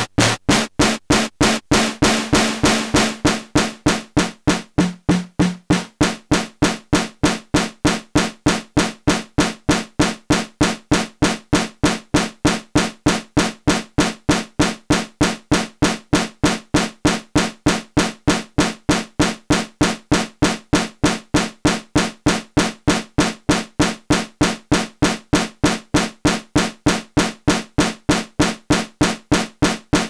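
WMD Kraken Eurorack synthesizer module played in a steady, clocked rhythm of sharp percussive hits over a held low pitched ring. A bright hissy wash swells up and fades away in the first few seconds.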